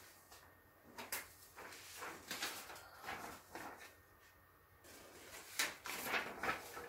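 Sheets of paper rustling in several short spells as handmade signs are picked up, held up and swapped for one another.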